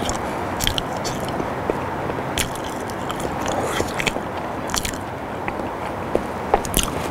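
Close-miked mouth sounds of a man eating boiled potato: soft chewing with sharp wet lip smacks about once a second, over a steady hiss.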